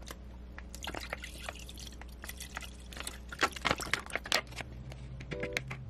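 Liquid soup stock poured from a pouch into an empty nonstick pot, splashing and dripping in uneven spatters, then stirred with a spatula.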